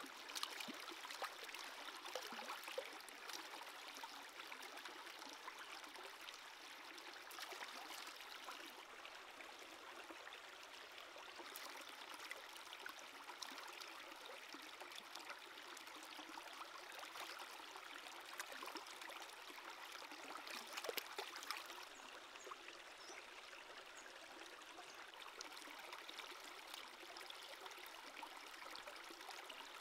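Shallow stream running over rocks, with small splashes and sloshes from hands rinsing food in the water.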